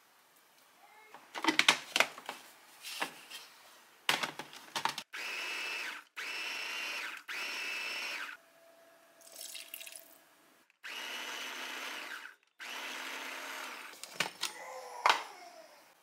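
Nutribaby+ baby-food maker's blender running in about five short pulses of a second or so each, puréeing cooked beef and broth into a smooth paste. A few sharp clicks and knocks come before the first pulse and again near the end.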